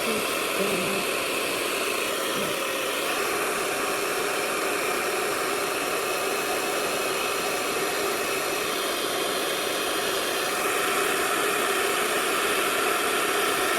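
Hand-held hair dryer running steadily at full blast, a loud even rush of air with a motor whine.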